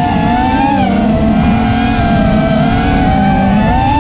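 The four Xing Camo 2208 2450KV brushless motors of an FPV freestyle quadcopter whining under throttle. The pitch dips slightly about a second in, holds level, then climbs over the last second as the throttle is raised.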